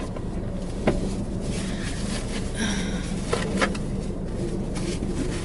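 Steady low buzzing hum inside a car cabin, with a few light knocks and a brief rustle as a napkin is fetched.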